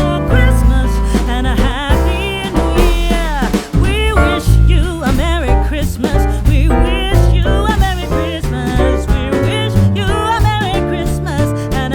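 A song with a sung vocal melody over bass and a steady beat.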